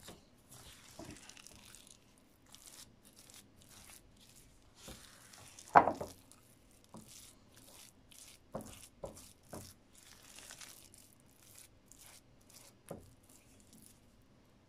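Silicone spatula working crumbly cookie dough in a bowl: irregular soft scraping and mashing strokes, with a few knocks against the bowl, the loudest about six seconds in.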